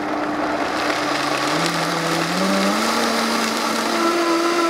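High-powered countertop blender running at high speed, puréeing a green marinade of peppers, herbs and capers. The motor note steps up in pitch a couple of times about one to three seconds in.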